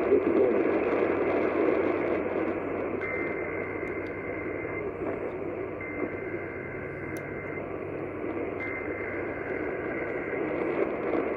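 Emergency Alert System header bursts over a hissy radio feed: three warbling digital data tones, each almost two seconds long, with about a second between them. They open a Required Monthly Test.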